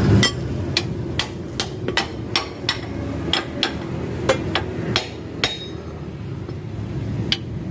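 Hammer striking steel at a car's rear leaf-spring mounting: about a dozen sharp metallic blows, two to three a second, then a pause and one more blow near the end. The leaf spring and its bolts are being knocked loose to replace a broken leaf.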